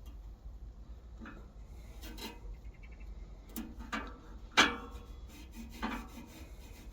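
A handful of light knocks and scrapes, the sharpest about four and a half seconds in, as small glass panes are fitted into the door of an Outbacker Firebox log-burner stove.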